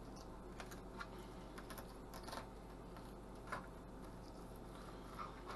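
Faint, irregular clicks and scrapes of a fillet knife cutting into a golden shiner on a plastic cutting board.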